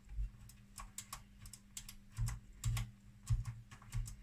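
Irregular clicks and light knocks from fingers working the front-panel knobs and switches of a Tektronix 5103N oscilloscope, about a dozen in all, over a steady low hum.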